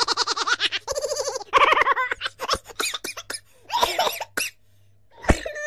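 Minions giggling and laughing in a string of rapid cartoon chuckles, with a short pause about four and a half seconds in and a falling squeal at the end.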